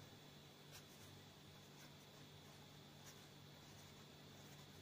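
Faint scratching of a pen writing on paper, a few light strokes over a quiet room hum.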